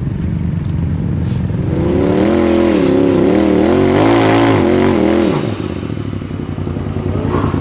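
Rock bouncer buggy's engine rumbling, then revved hard for about three and a half seconds with its pitch wavering up and down, typical of an engine under heavy load on a steep hill climb, before dropping back to a lower rumble.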